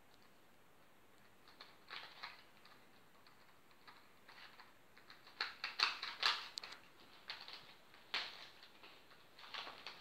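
Plastic clicking and clacking of a 3x3 Rubik's cube as its layers are turned quickly by hand, in irregular bursts of turns. The clicks begin about two seconds in and are busiest and loudest around the middle.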